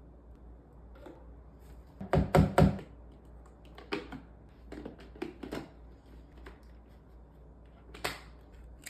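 Cordless vacuum's plastic dust bin being handled and emptied: a quick run of hard knocks about two seconds in, then scattered clicks and taps.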